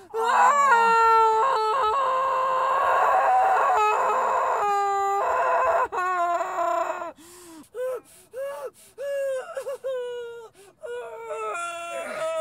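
A woman screaming in labour pain with a belt clenched between her teeth: one long high scream for about the first six seconds, then a run of shorter strained cries and whimpers.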